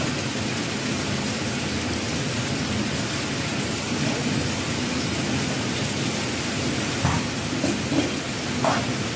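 Kimchi sizzling as it heats in a frying pan, a steady hiss, with a few light knocks near the end.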